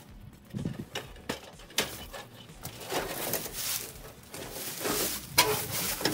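Boots shuffling in dry leaves and a rusty corrugated tin skirting sheet scraping and knocking as it is worked loose and pulled away from the house's foundation, with a sharp knock about five seconds in.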